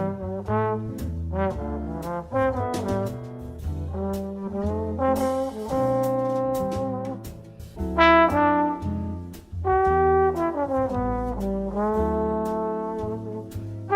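Brass-band music with trombone and trumpet playing a melody of short changing notes, with a steady low bass beneath. It starts suddenly out of silence.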